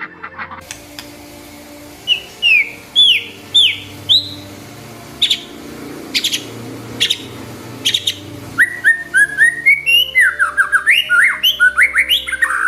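Bird calls: a few clear whistled notes that curve downward, then a series of sharp clicks, then a fast chattering run of whistled notes in the second half.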